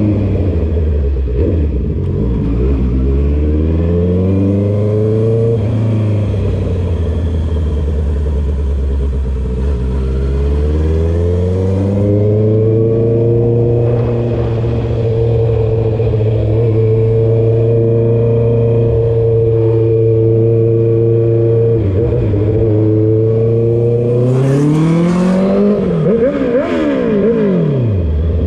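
Honda CB650R's inline-four engine, loud through a full exhaust with the dB killer removed, under way on the road. Its pitch climbs and drops several times in the first few seconds, then holds steady at a cruise, then rises and falls quickly several times near the end.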